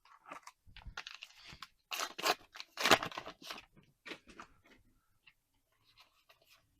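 A trading-card booster pack being torn open and its foil wrapper crinkled, in a few short rips between about one and four seconds in.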